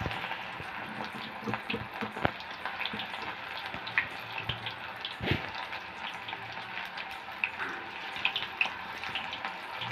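Batter-coated cauliflower pieces deep-frying in hot oil: a steady sizzle full of small crackling pops, with one louder pop about five seconds in.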